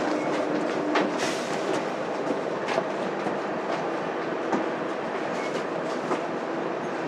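Cabin noise of a Mitsubishi Fuso Aerostar city bus on the move: its 6M70 inline-six diesel running under the sound of body and fittings rattling, with a few sharp clicks and knocks. A steady hum fades about a second in.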